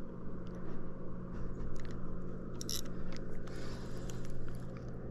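Fishing reel being cranked while a hooked bass is played in: scattered short clicks and rustles over a steady low hum.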